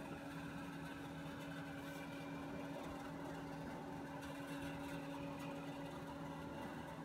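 Steady low hum with a couple of constant faint tones, unchanging throughout: the room tone of a small room.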